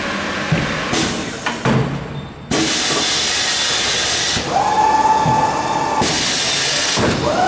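Corghi Artiglio Master Code tyre changer working in automatic mode: bursts of compressed air hissing from its pneumatics, with a few knocks as the tyre is set on, and a motor whine that rises and holds steady about halfway through and again near the end.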